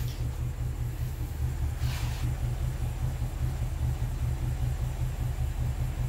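BMW N62 V8 idling roughly, an uneven, shaking low rumble from a misfire on most cylinders. A brief rustle comes about two seconds in.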